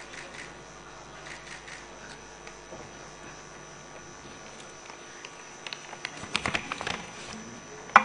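Quiet assembly-hall room tone with a faint steady hum, broken by scattered faint clicks, then a quick run of clicks and knocks about six to seven seconds in.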